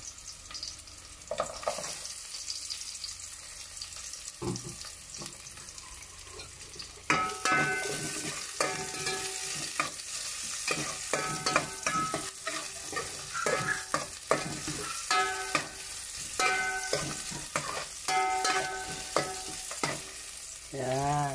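Garlic and sliced onions frying in oil in a metal pot, stirred with a metal spoon. About seven seconds in the stirring gets louder, with repeated scraping clinks of the spoon that leave the pot ringing briefly.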